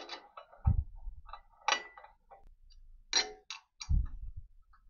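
A steel marking tool clinking and scraping in a hole of a 5 mm steel plate as screw-hole positions are marked through it onto the frame beneath: a scatter of sharp metallic clicks and clinks with a brief ring, and a couple of dull knocks as the plate shifts on its mount.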